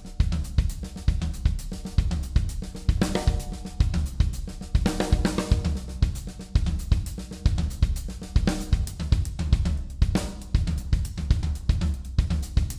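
Drum kit played in a continuous fill built from right-left-left-kick and right-left-kick patterns, moving between floor tom, hi-hat and snare with bass drum strokes in between. Some strokes let the toms ring out.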